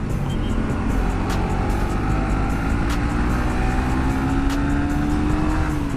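Sport motorcycle engine pulling under steady throttle, its pitch rising slowly as the bike gathers speed, then dropping near the end as the throttle comes off, over a steady low rumble of riding.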